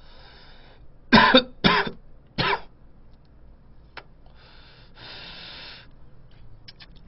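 A man coughs three times while smoking a cigarette, then blows out a long breath of smoke.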